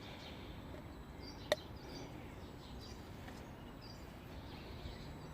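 Quiet background with faint short high chirps every second or so and a single sharp click about a second and a half in; the engine is off.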